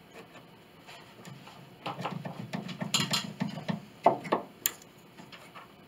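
A square cut nail being worked out of old hardwood with pliers: creaking and scraping as it twists in the wood from about two seconds in, then a few sharp metallic clicks near the end as the pliers grip and slip.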